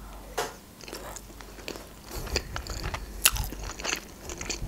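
Close-miked biting and chewing of a mouthful of food, with crisp crunching clicks; the loudest crunch comes about three seconds in.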